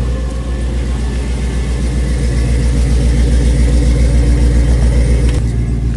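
LS-swapped V8 in a classic C10-style pickup, idling steadily with a fast, even pulse.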